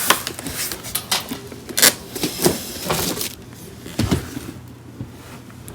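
A box being opened by hand and its contents handled: a quick run of crackles, scrapes and knocks, thinning out to a few soft knocks after about three and a half seconds.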